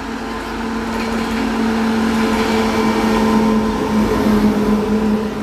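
WAP-7 electric locomotive and its passenger coaches passing at speed, the wheels rumbling over the rails with a steady hum running through it. It grows louder until about three to four seconds in.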